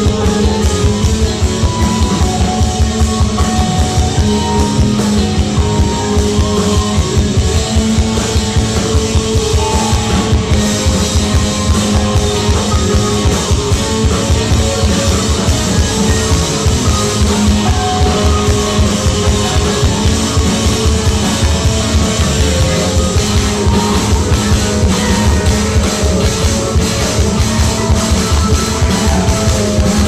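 Live rock band playing loud and without a break: electric guitars, bass and drum kit.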